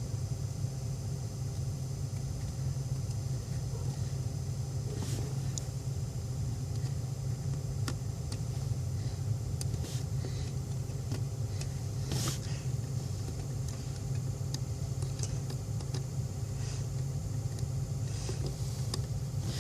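A steady low mechanical hum with a few faint, sharp clicks scattered through it, like a test-light probe touching fuse terminals.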